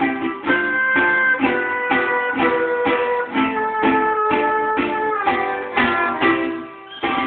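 Acoustic guitar strummed in a steady rhythm, its chords changing every few strokes, with a short break near the end.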